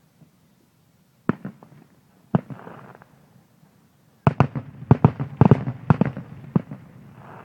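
Aerial fireworks exploding. A single sharp bang comes about a second in and another about two seconds in, then a rapid string of loud bangs follows from about four seconds in.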